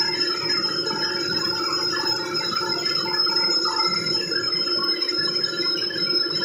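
Metal lathe running, with a steady high whine and its gears rattling.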